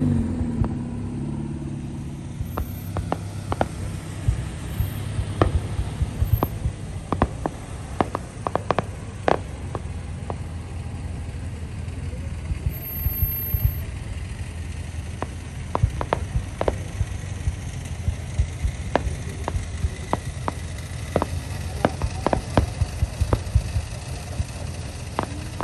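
Fireworks going off in irregular volleys of sharp bangs and crackles, over a steady low rumble of car engines and traffic.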